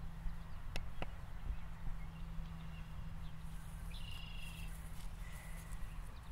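Quiet outdoor ambience under a steady low hum, with two light clicks near the start and brief bird chirps about four seconds in and again a second later.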